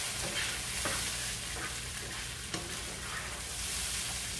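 Onions and ginger-garlic paste sizzling in oil in a nonstick frying pan while a spatula stirs them, with a few scraping strokes against the pan over the steady sizzle.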